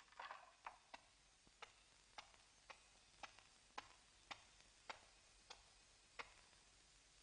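Slow footsteps on a hard floor: faint, sharp clicks about every half second, stopping about six seconds in.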